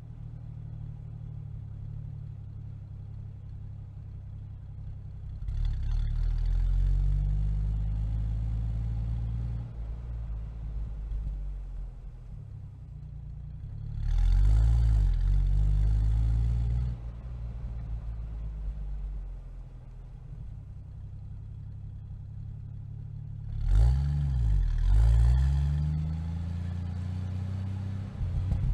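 Jeep Wrangler exhaust heard at the tailpipe: the engine idles, then is revved or driven off three times (about six seconds in, near the halfway point, and near the end), each time growing louder with the pitch rising and falling before it settles back to idle.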